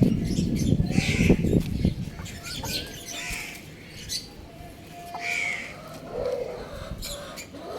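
Young rooster giving three short, high calls about two seconds apart. A low rumble fills the first two seconds.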